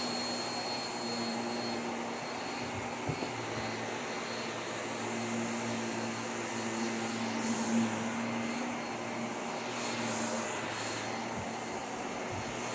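Vacuum cleaner running steadily, its motor giving a constant whooshing hum, with a couple of small knocks about 3 and 8 seconds in.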